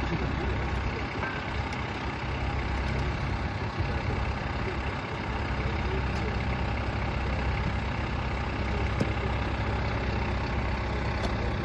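Engine of a heavy work vehicle idling steadily.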